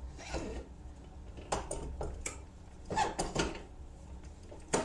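Rear axle of a Honda ATC 200E three-wheeler being slid out of its housing by hand: irregular metal clinks, scrapes and knocks as the steel shaft and sprocket shift against the hub.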